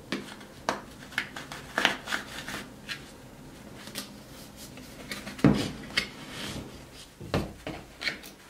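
Hands handling a plastic wipes canister and blue shop towels: scattered light clicks and taps from the plastic lid and container, with two louder knocks about five and a half seconds in and two seconds later.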